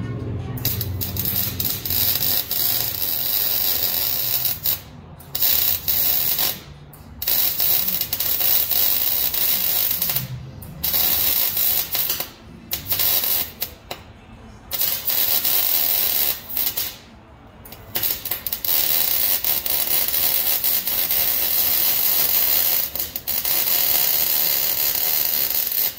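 Arc welding on a truck's exhaust pipe: the welder runs in long bursts, stopping briefly about half a dozen times between welds.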